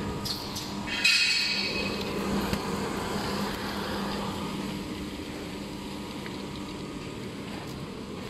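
Heat shrink tunnel running with a steady hum. A brief, loud rasping noise comes about a second in.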